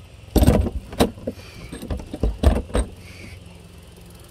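Fan-Tastic Vent Ultra Breeze vent cover handled and set down over its mounting posts. It gives a series of irregular knocks and rattles, the loudest about half a second in.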